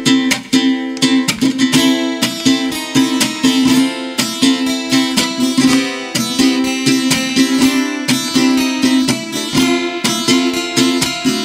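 Instrumental intro on ukulele and acoustic guitar: picked and strummed notes in a steady rhythm, with no singing yet.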